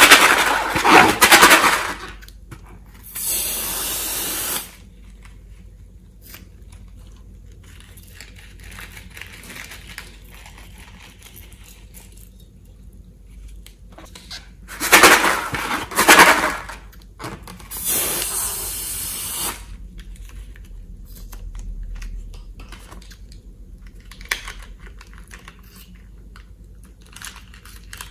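Slime and air squeezed out of a slime-filled balloon into a bowl: a rough, squelching burst followed by a steady hiss of escaping air, happening twice, with soft crackly handling of glitter-covered slime in between.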